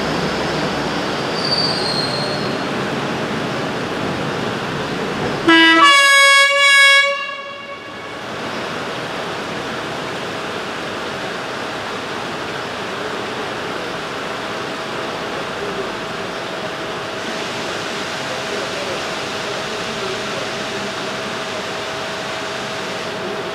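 Đuro Đaković-built diesel locomotive running as it pulls away, sounding its horn once, loud, for about two seconds about six seconds in.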